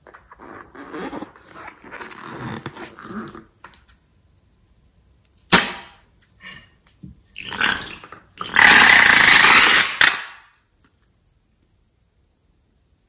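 Slime being squeezed out through the neck of a slime-filled balloon: wet squelching and sputtering as slime and air are forced out, with a sharp click about five and a half seconds in and a louder hissing, spluttering spurt lasting about two seconds past the middle.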